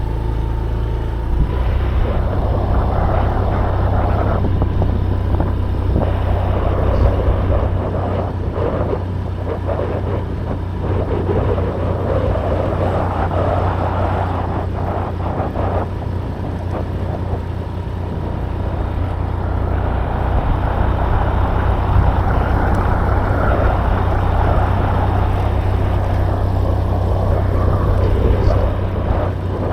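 Wind buffeting the camera microphone over a steady low vehicle rumble, swelling and easing every several seconds.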